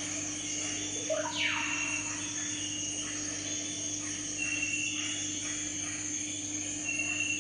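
Steady low electrical hum with a constant high hiss. Short high chirps come four times, and a quick falling whistle sounds about a second and a half in.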